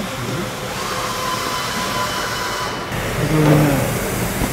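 Steady workshop background noise in a large hangar, with a short low hum about three seconds in.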